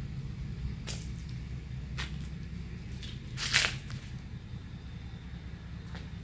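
Handling noise from a handheld camera being moved: a few light brushes and clicks, then one louder rubbing scrape about three and a half seconds in, over a steady low rumble.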